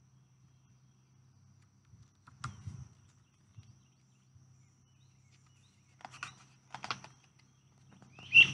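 Pages of a paperback picture book being handled and turned: a few brief, soft paper rustles and flaps, over a faint steady low hum.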